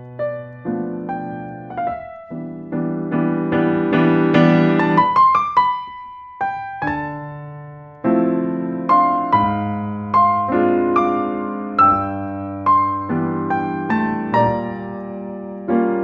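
Background solo piano music: notes and chords struck one after another and left to ring out.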